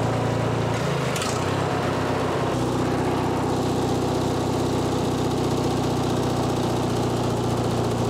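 Craftsman 19.5 hp riding mower engine running while its carburettor mixture screw is adjusted. The engine speed sags about a second in, picks back up and then holds steady; the mixture was probably too lean.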